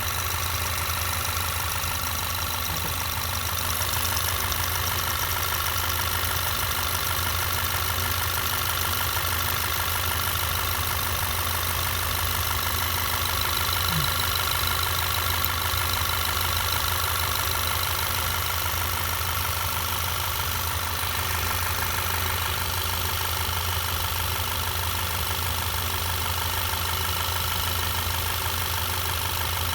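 2012 Volkswagen GTI's turbocharged four-cylinder engine idling, with a steady ticking over the engine hum: the EVAP purge valve solenoid clicking open and shut at idle, which the dealer calls normal.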